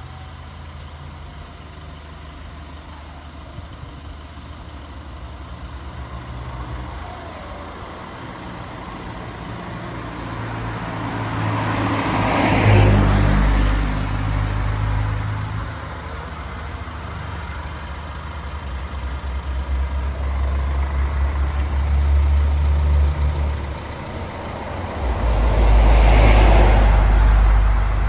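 Road vehicles with a steady low engine rumble, and two vehicles passing close, the noise swelling and fading about twelve seconds in and again near the end.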